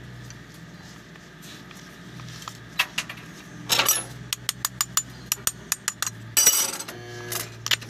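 Metal clinking while an angle grinder's disc is changed: a wrench and the steel disc and spindle parts knock together in a run of sharp clicks with a few louder clanks. A steady low hum runs underneath.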